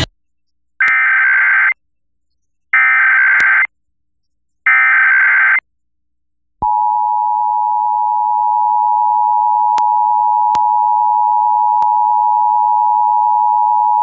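Emergency Alert System alert over broadcast radio: three short bursts of the warbling SAME data header, then the steady two-tone attention signal starting about two-thirds of the way in, marking the start of the National Periodic Test. A few faint clicks sound during the tones.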